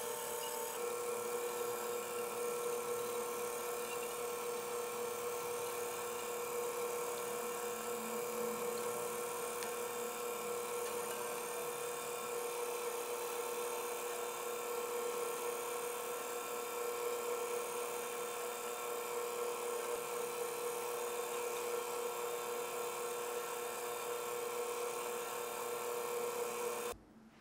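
Small electric whisk motor running at a steady pitch as it beats eggs and sugar in a glass bowl. It cuts off abruptly just before the end.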